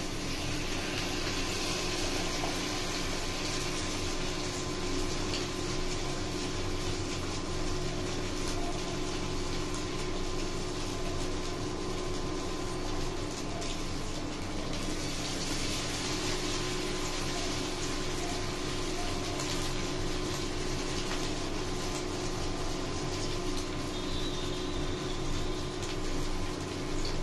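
Potato snack balls deep-frying in hot oil in a kadhai, the oil sizzling and bubbling steadily.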